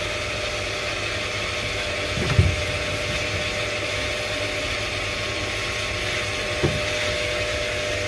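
K9000 self-service dog wash running steadily: the hum of its motor with water hissing from the hose as a puppy is washed. Two dull thumps break in, about two and a half and six and a half seconds in.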